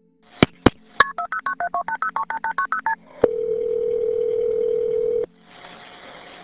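Telephone sound effect: a few clicks, then a quick run of more than a dozen touch-tone keypad beeps being dialled, a click, and a steady line tone about two seconds long that cuts off sharply. Faint phone-line hiss follows.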